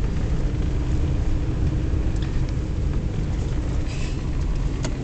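A car driving on a wet road, heard from inside the cabin: a steady low rumble of engine and tyres with road hiss, and a few faint clicks.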